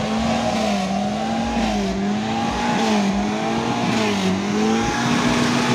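Telolet-style musical car horn sounding one long continuous tone that dips and swells in pitch several times.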